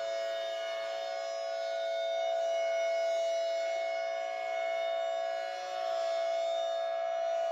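Outdoor civil defense siren sounding a steady two-note chord without rising or falling in pitch. Its level slowly swells and dips once, about five and a half seconds in. The recording has been reworked with audio effects.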